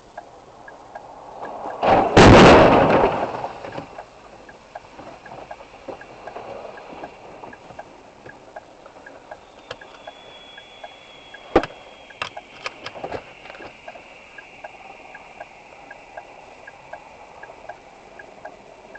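A car collision: one loud crash about two seconds in that trails off over a second or so, followed later by a few sharp clicks and knocks over a faint, steady ticking.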